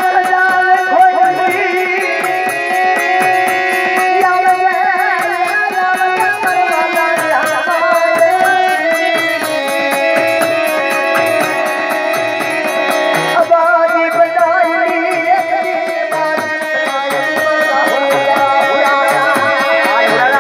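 Dakla folk music: a melody over sustained instrument tones and a steady drum beat.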